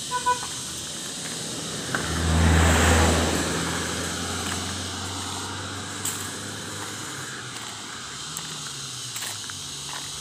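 A motor vehicle passing close by on the road: its engine and tyre noise swell about two seconds in, then fade slowly over the next several seconds.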